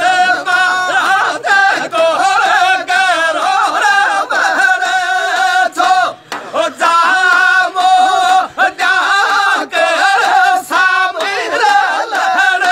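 Male voices singing a Rajasthani dhamal folk song, with strokes on a chang, a large hand-held frame drum.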